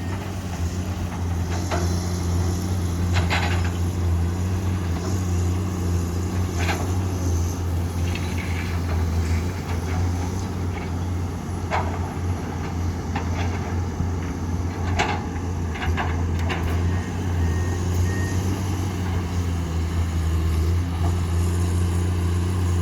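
Heavy diesel engine of a Komatsu PC210 excavator running steadily under work, with a few scattered sharp metallic clanks and knocks.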